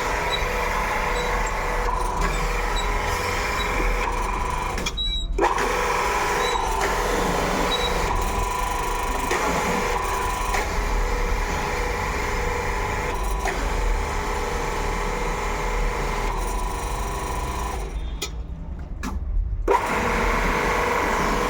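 An electric motor-driven machine running steadily with a constant hum, with brief dips about five seconds in and again near the end.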